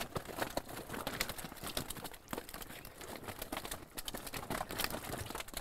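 Wet keepnet mesh and a nylon weigh sling full of carp rustling and crinkling as they are handled, with many small irregular clicks and slaps.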